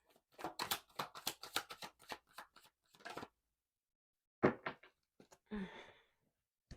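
A tarot deck being shuffled by hand: a quick run of card clicks for about two seconds, then a few separate card taps and a rustle.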